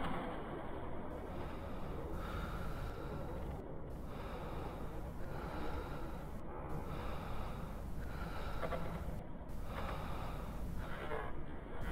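Loud, rough human breathing in slow, even cycles, a long breath about every two and a half seconds, over a steady hiss.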